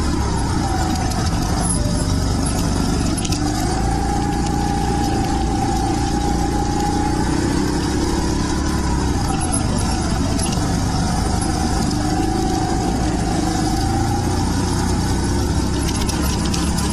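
Rental go-kart's small engine running on the track, heard on board, its pitch rising and falling as the kart speeds up and slows through the corners.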